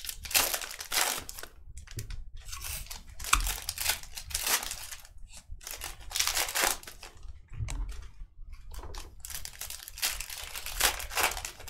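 Foil wrappers of Panini Prizm football card packs being torn open and crinkled by hand, in a run of irregular rustling bursts.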